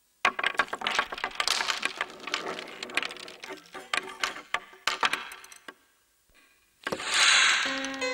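Small wooden blocks and shapes clattering and tumbling on a hard surface, a run of quick knocks and taps that thins out and stops about six seconds in. Then a bright shimmering swell, and near the end the first held notes of a short musical logo sting.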